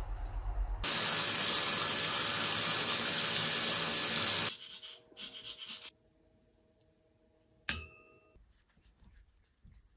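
A loud, steady rush of noise, like running water, starts suddenly about a second in and cuts off about four seconds later. Some seconds after it comes one short, ringing clink.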